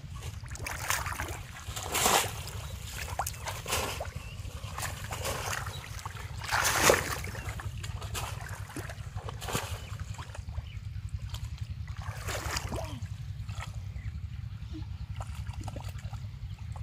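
Irregular splashes and sloshing in shallow muddy water as a bamboo polo fish trap is plunged down and a person wades, with the loudest splash about seven seconds in. A steady low rumble runs underneath.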